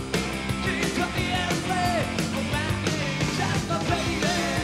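Live rock band playing: drums keeping a steady beat under electric guitars, with a melodic lead line that slides and bends in pitch.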